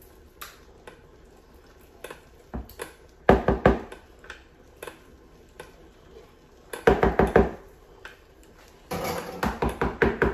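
Pumpkin puree being knocked out of its can into a plastic mixing bucket: three bursts of quick clattering knocks, about three, seven and nine seconds in.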